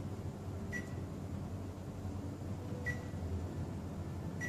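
Three short high beeps from a Korg Krome's touchscreen as the panel is tapped, a second or two apart, over a steady low hum.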